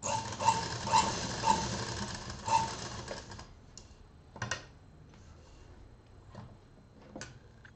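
Domestic sewing machine stitching a seam for about three seconds, with a beat about twice a second, then stopping. A few light clicks follow as the fabric is handled.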